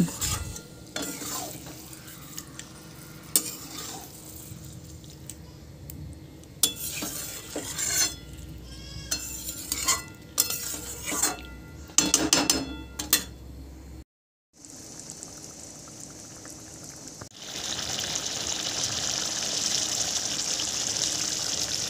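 Metal spatula scraping and tapping against a steel wok as Bombay duck fish is gently stirred through frying masala, over a low sizzle. After a brief break about two-thirds through, a steady, louder sizzle of the curry bubbling in its gravy takes over.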